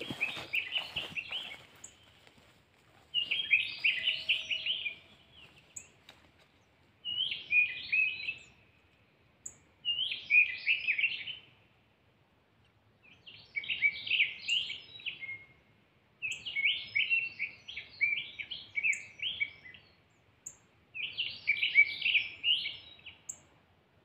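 Little bunting singing: about seven short phrases of rapid, chirping high notes, each a second or two long, repeated every three seconds or so. It is a caged decoy bird calling to draw wild little buntings to the nets.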